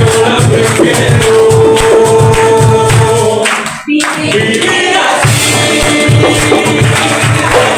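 Live Venezuelan folk-ensemble music: singing over a steady percussion beat. The music dips briefly and cuts back in sharply just under four seconds in.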